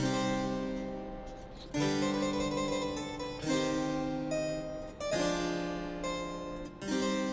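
Background music on harpsichord: chords struck about every second and a half to two seconds, each fading away, with a few quicker notes between them.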